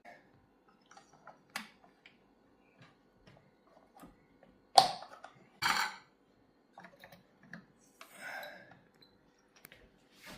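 Small clicks and scrapes of hand tools working on a cuckoo clock's mechanism to ease out a little retaining pin, with two louder sharp clicks about five and six seconds in and a brief scrape near the end.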